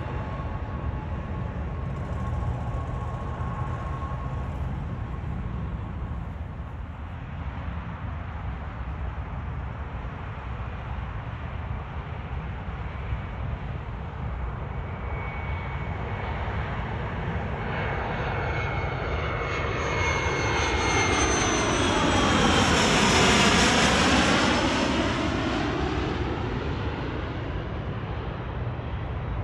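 Business jet on final approach passing low overhead: turbofan whine and rumble build to a loud peak about two-thirds of the way through, the pitch dropping as it goes by, then fade. A steady low rumble runs underneath.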